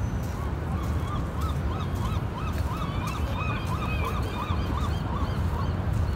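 A bird calling in a rapid, even series of about fifteen notes, each rising and falling in pitch, roughly three a second, stopping near the end.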